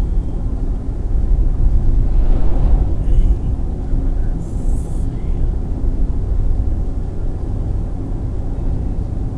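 Steady low rumble of a car driving at highway speed, heard from inside the cabin, with a swell of louder road noise about two to three seconds in as an oncoming vehicle passes.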